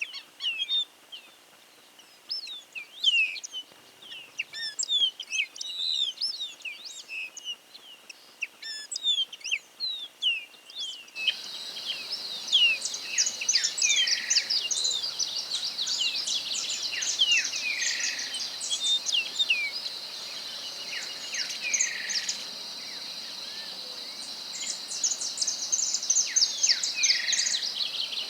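A songbird singing: quick, high chirping and twittering notes. About 11 s in, the recording changes and a steady, high insect drone joins the song, along with repeated downward-slurred notes.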